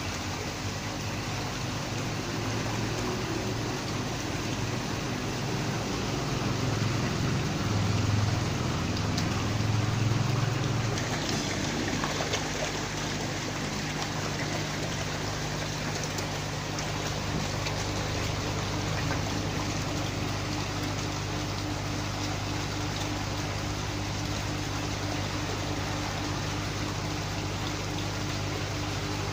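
Water splashing and bubbling in a crowded koi holding tank, over a steady low hum. The splashing is a little louder for several seconds about a quarter of the way in.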